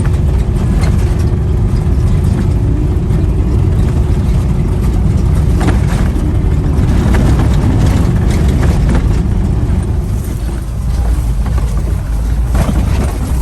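Car driving along, heard from inside: a steady low rumble of engine, tyres and wind, with occasional short knocks or rattles.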